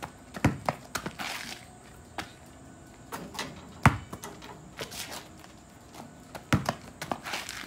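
A basketball bouncing on an asphalt driveway: a handful of separate sharp thuds spread out, the loudest about four seconds in.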